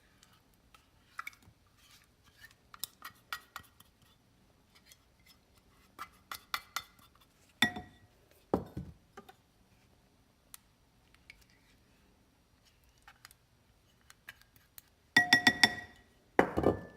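Spoon and measuring cup clinking and knocking against a bowl as Greek yogurt is measured and scooped in for icing. Scattered light clinks, a few of them ringing briefly, and a louder run of knocks near the end.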